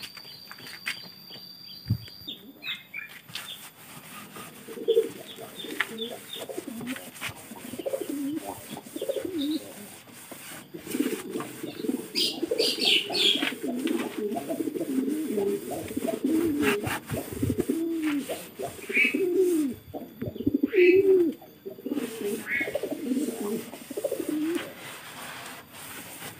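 Domestic pigeons cooing over and over, starting a few seconds in, with scattered knocks and rubbing from a damp cloth being wiped over a slatted bamboo loft floor.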